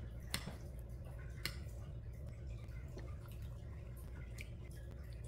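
A metal spoon scooping curry off a ceramic plate, then quiet eating sounds: a few light, separate clicks over a low steady hum.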